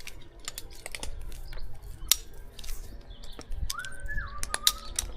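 Scattered sharp clicks and knocks. Near the end comes a short whistle that rises, holds, then steps down in pitch.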